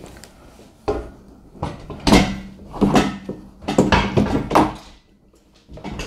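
Knocks and clunks of the center top section of a sectional longarm quilting frame being dropped onto the legs and pushed into line with the side sections. There are about six sharp knocks over four seconds, some with a brief ring.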